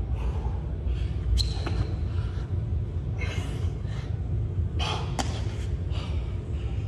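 A person doing burpees: a few sharp slaps and thuds of hands and feet on the gym floor and breaths between them, over a steady low hum.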